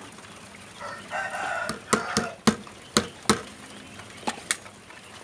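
A caged quail gives a call lasting about a second, starting about a second in. Several sharp knocks are scattered through the rest.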